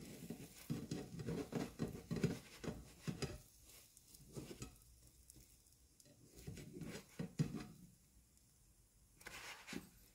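Slotted spatula scraping and tapping against a nonstick frying pan as it works under an omelette to turn it. The scrapes and light knocks come in several short spells.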